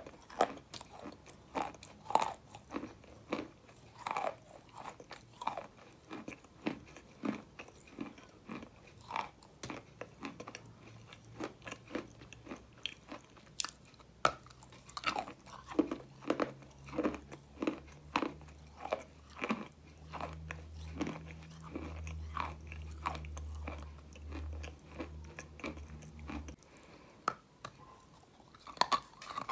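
Biting and chewing dry white clay: a steady run of crisp crunches as pieces are bitten off a thin slab and chewed.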